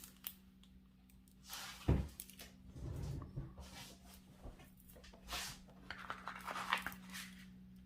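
Faint handling noises: soft rustling of the canvas and packaging, with a dull thump about two seconds in, over a low steady hum.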